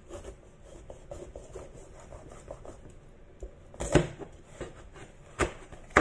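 A chef's knife cutting lengthwise through a bitter gourd on a wooden cutting board: soft scraping and crunching of the blade through the ridged skin, then three sharp knocks of the knife on the board in the last two seconds, the last the loudest.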